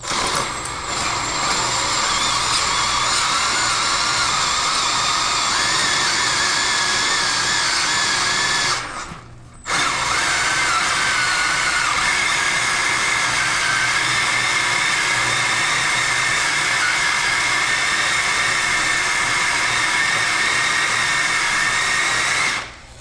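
Drill driving a 4-inch Milwaukee hole saw through a PVC toilet flange fitting, running steadily with a whine as it cuts the plastic. It stops briefly about nine seconds in, then starts again and runs on.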